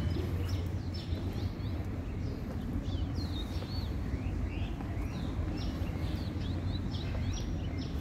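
Many small birds chirping, a dense run of short calls sliding up and down in pitch, over a steady low rumble of town background noise.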